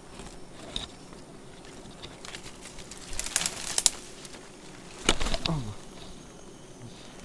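Rustling and crackling of leaves and twigs being pushed through in forest undergrowth, with a cluster of sharp snaps about three seconds in and a louder snap a couple of seconds later, followed by a short falling tone.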